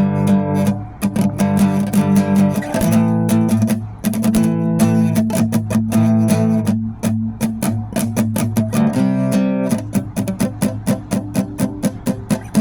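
Music: an acoustic guitar strummed in a steady rhythm, its chords changing every few seconds.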